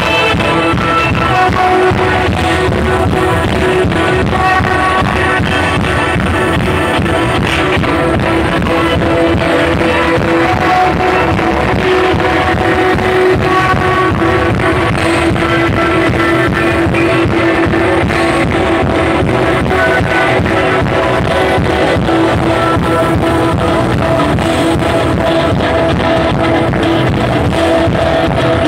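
Loud music with a steady beat and long held notes.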